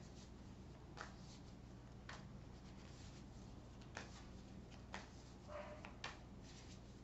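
Faint hand shuffling of a deck of tarot cards: soft ticks and rustles of cards sliding about once a second, over a low steady room hum.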